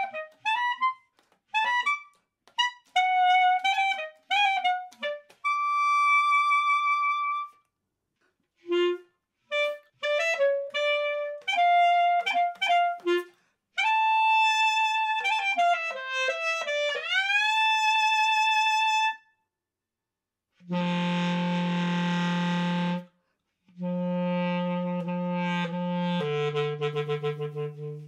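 Solo basset horn: quick, detached runs and short phrases, then long held notes, one of which swoops down and back up in pitch. After a pause near the end it plays sustained notes low in its range.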